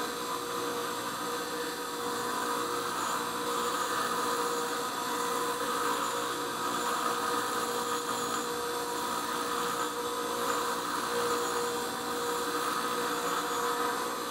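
An 8-inch bench grinder running steadily while its new grinding wheel is dressed: a continuous grinding hiss over the motor's steady tone. The dressing trues a wheel that was running off center.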